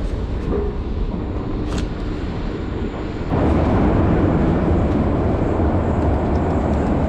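Tehran Metro train rumbling along, growing louder about three seconds in.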